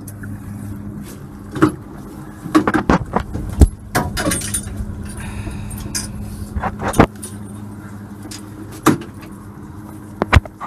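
Boat motor idling steadily, with scattered clinks and several sharp knocks of dive gear and metal on the aluminium boat as a diver climbs aboard.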